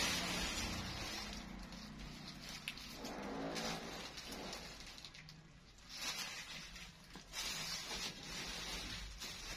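Fabric rustling as clothes are handled, in short swishes that come and go, strongest about six and seven seconds in.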